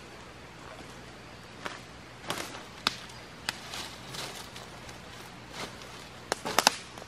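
Scattered sharp knocks and snaps with soft crunchy rustles, like someone moving about and handling wood and branches on the forest floor. A quick run of louder snaps comes near the end.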